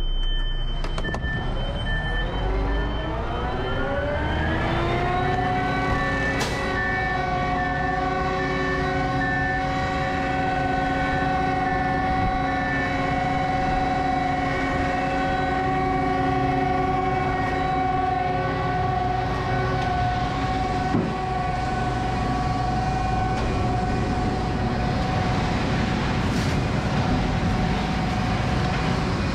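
Concrete mixer truck's diesel engine revving up over about four seconds and then holding at a steady high speed to turn the drum and mix in the fiber. A repeating beep sounds alongside for the first dozen seconds or so.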